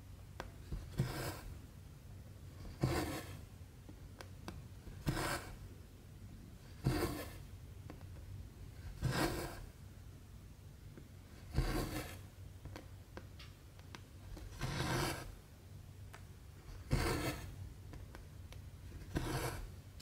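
Cotton embroidery thread drawn through 14-count Aida cross-stitch fabric: a short rasping pull of thread through cloth about every two seconds, nine strokes in all.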